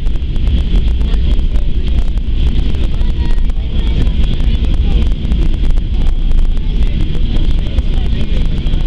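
Cabin noise inside a Boeing 737-800 rolling on the runway after landing: a heavy low rumble from the wheels and airframe with rattling, under a steady high whine from the CFM56-7 engines.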